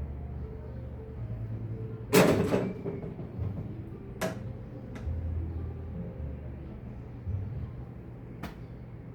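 Golf club strikes: one loud sharp crack about two seconds in, then three fainter, thinner clicks spread over the next six seconds, over a low steady rumble.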